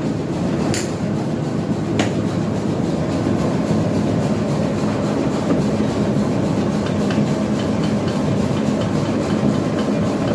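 Workshop machinery running with a steady rumble and hum, with a couple of sharp metal knocks in the first few seconds.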